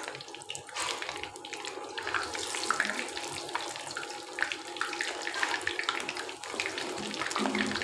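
Batter-coated fish deep-frying in hot oil in a kadai: a steady sizzle dense with small crackles and pops.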